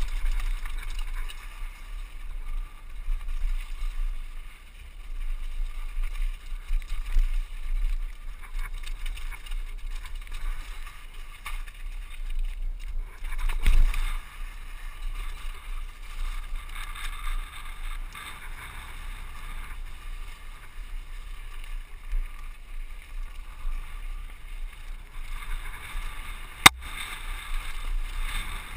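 Wind buffeting the microphone of a rider-worn camera on a downhill mountain bike descent, over the rattle of the bike and its tyres on rocky dirt. There is a thump about halfway through and a single sharp knock near the end.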